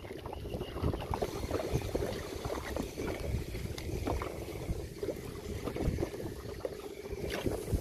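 Choppy water lapping and splashing against the hull of a small wooden boat, with many irregular small knocks. A faint steady hum runs underneath.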